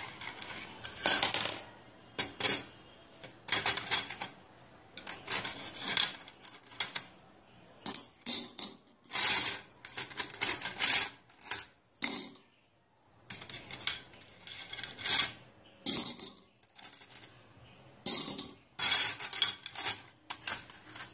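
Bangles clinking and jangling against one another and a stainless steel plate as they are lifted out one at a time on a knitting needle. The clinks come in irregular bursts with short pauses between them.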